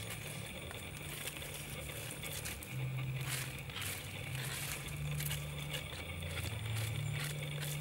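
Crackling and rustling of dry twigs and leaves around a small open fire as they are handled, scattered irregular clicks, over a low steady hum that shifts pitch every second or so.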